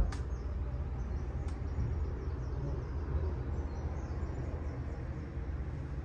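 Steady low rumble of background noise, with a single sharp knock at the very start and faint high chirps a couple of seconds in.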